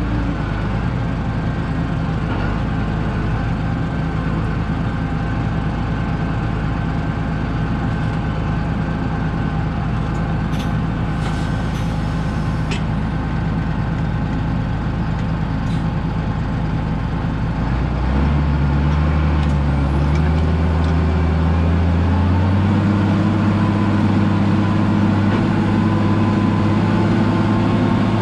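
Tractor diesel engine running steadily, with a few faint clicks around ten to thirteen seconds in. About eighteen seconds in the engine speeds up and gets louder, and its note steps up again a few seconds later.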